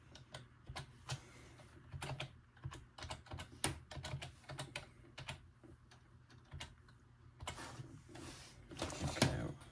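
Typing on a computer keyboard: irregular key clicks, with a quicker, louder run of keystrokes near the end.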